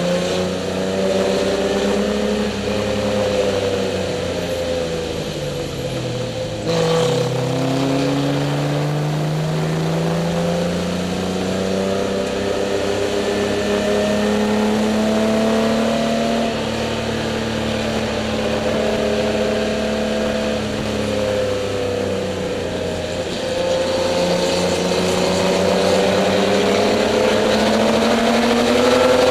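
BMW E30 race car's inline-six engine heard from inside the cockpit under racing load, its revs rising and falling through the corners. The revs drop to a low about six seconds in, then climb steadily after a sudden short noise. They dip again a few seconds before the end and then rise.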